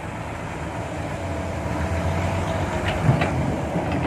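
Heavy diesel earthmoving machinery running under load with a rattling clank, slowly growing louder, with a thump about three seconds in.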